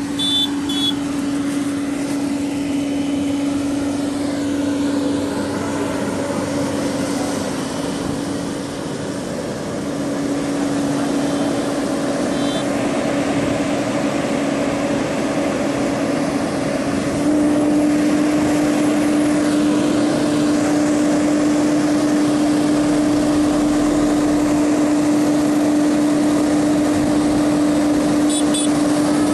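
JCB JS205 tracked excavator running steadily, its engine noise carrying a strong steady whine that steps up slightly in pitch and loudness a little past halfway.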